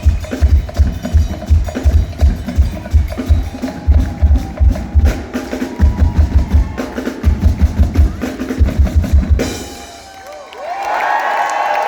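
Live band playing a fast, heavy drum beat with pounding kick drum, which stops abruptly about nine and a half seconds in as the song ends. After a brief lull, the crowd breaks into cheering and whistles near the end.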